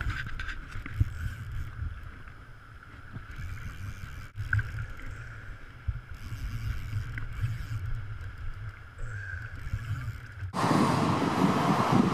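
Muffled low rumble of wind and river water picked up through a body-worn camera, with a few faint knocks. About ten and a half seconds in it switches abruptly to the open rush of a fast river and wind on the microphone.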